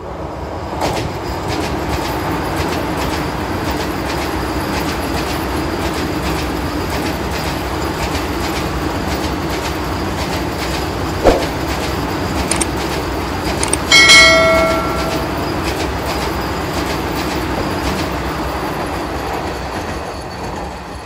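Vande Bharat Express electric trainset passing close by: a steady rumble with wheels clattering over rail joints. A sharp click comes a little past halfway, and a brief loud high-pitched tone follows about two-thirds of the way through.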